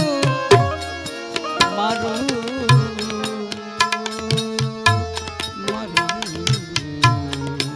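Tabla and harmonium accompanying a Gujarati bhajan: tabla strokes with deep bass thumps over held harmonium notes. A singer's voice bends through one word, 'maru', in the first couple of seconds.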